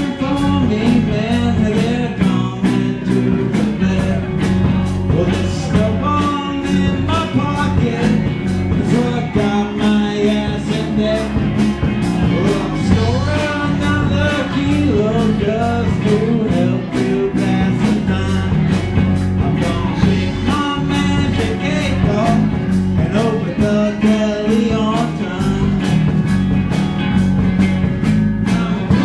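Live rock band playing, with drums keeping a steady beat of regular cymbal and drum strikes under the guitar and bass.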